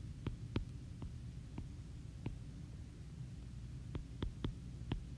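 Stylus tip tapping on a tablet's glass screen while numbers are handwritten: several short sharp taps spread out, with a cluster of them near the end, over a low steady hum.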